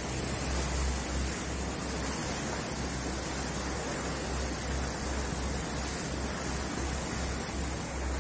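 Steady rushing wind and water noise aboard a boat under way, with a low rumble that swells and fades as the wind buffets the microphone.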